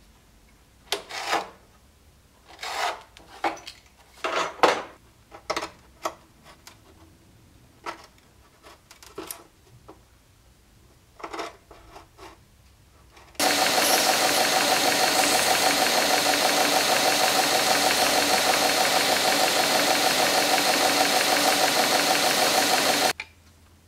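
A knife cutting small strips at a workbench in about a dozen short, separate scraping strokes. Then a belt grinder runs steadily and loudly for about ten seconds, sanding a small piece held against its contact wheel, and cuts off abruptly near the end.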